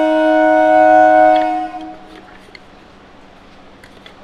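Train horn sounding a steady chord of several held tones, stopping about a second and a half in and fading out by two seconds. After it, only a few faint clicks are heard.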